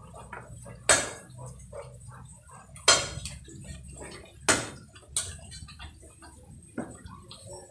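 A cleaver chopping thin branches into kindling on a round wooden chopping block. There are about five sharp chops at irregular intervals, with lighter clatter of sticks between them.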